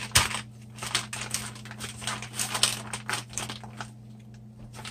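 Paper crinkling and rustling in irregular bursts as gloved hands roll a log of dough tightly inside it, easing off near the end, over a steady low hum.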